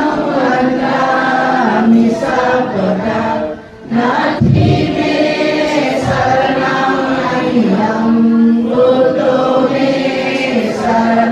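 Buddhist monks, nuns and lay devotees chanting Pali verses together in unison, with a brief pause for breath a little under four seconds in.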